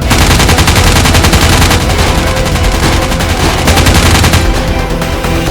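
Rapid-fire shooting sounds, many shots a second, over background music; the shooting stops about four seconds in.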